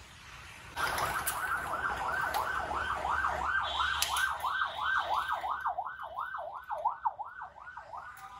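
Ambulance siren, a fast up-and-down wail of about three sweeps a second. It starts suddenly about a second in and cuts off just before the end.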